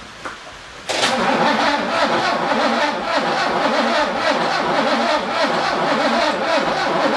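VK Commodore engine cranked over on its starter motor, starting suddenly about a second in and keeping on with a steady, uneven pulsing without settling into a run. This is a first start after about ten years sitting, and the owner suspects the engine isn't picking up fuel.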